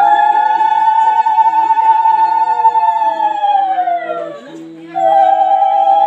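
Women's ululation (ulu-dhwani), a loud, high, trilling call held for about four seconds. It sags in pitch as the breath runs out, then starts again about five seconds in.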